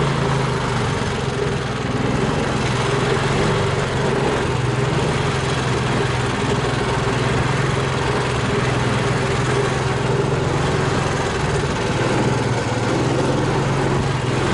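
Engine of a homemade all-terrain vehicle on low-pressure tyres running steadily under way, a constant low drone at an even pitch.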